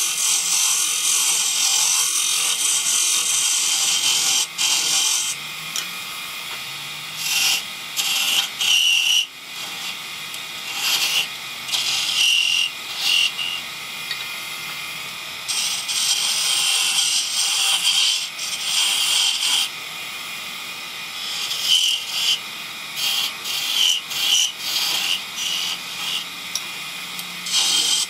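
Wood lathe running while a gouge cuts a spinning wooden spindle: repeated hissing cuts lasting a few seconds each, with the lathe's steady running sound in the gaps between them.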